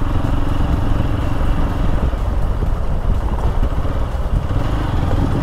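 Motorcycle engine running steadily at about 30 km/h, with wind and road noise on the microphone; a faint steady hum in it fades out about two seconds in.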